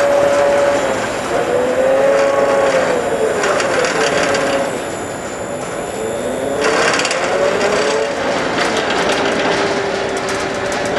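Ship's mooring winch running, its motor whining and slowly rising and falling in pitch several times, over a steady rough noise with scattered clicks that grow busier about halfway through.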